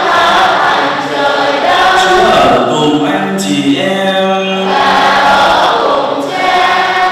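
A large congregation singing in unison, a chanted liturgical response with held notes.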